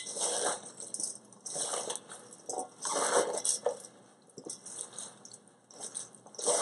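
Hands tossing and mixing salted napa cabbage, carrots, daikon and green onions in a stainless steel bowl, rustling in irregular bursts. The salt is being worked in to start drawing the water out of the vegetables for kimchi.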